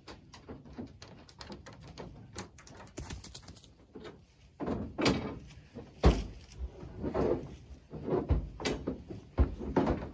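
A heavy portable generator being dragged and rolled across a pickup truck bed: a run of small clicks and knocks, then several heavier thumps and bumps, the loudest about six seconds in.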